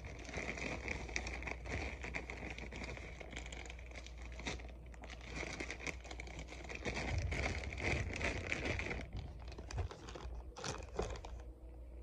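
Plastic bag of marshmallows crinkling and rustling as hands handle and open it, thinning out near the end with a couple of sharper crackles.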